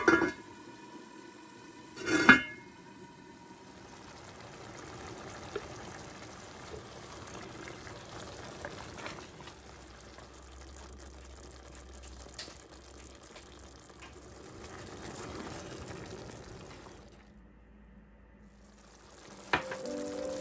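A pot lid set down on a heavy enamelled pot with a ringing clink, twice: once at the start and again about two seconds in. Then a steady soft hiss and bubble of curry simmering in the pot, with music coming in near the end.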